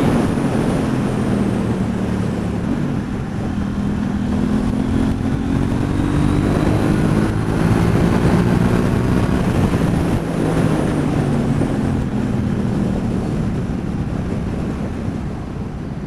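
2019 KTM 790 Duke's parallel-twin engine breathing through a Mivv Delta aftermarket exhaust, pulling steadily on the road, its note rising gently and then easing off in the second half. Heard from inside the rider's helmet, with heavy wind noise over it.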